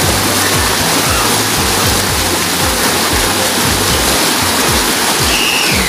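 Water gushing into a water slide's start pool, a loud, steady, churning rush.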